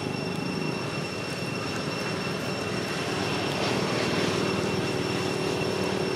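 Steady outdoor drone: a low rumble under two steady high-pitched whining tones, swelling a little past the middle.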